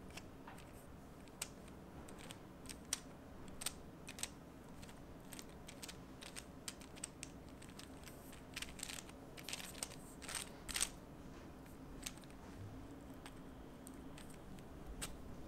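Faint, irregular clicking and ticking from a 3D-printed plastic planetary gear fidget spinner as it is turned in the hand. The clicks come thickest about two-thirds of the way through.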